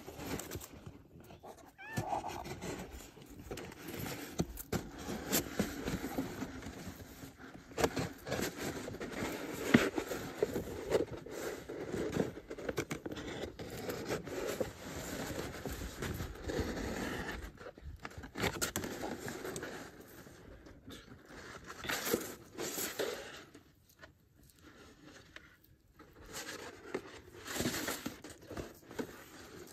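Dry leaves and grass rustling and crackling unevenly as a ginger tabby cat rolls and paws about on the ground, with scattered sharp clicks and scrapes.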